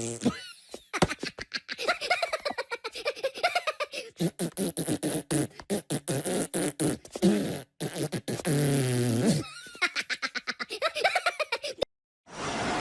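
Comic buzzing, sputtering sound effects made of rapid pulses whose pitch slides up and down, in several runs with brief breaks. They sound like mouth-made raspberries.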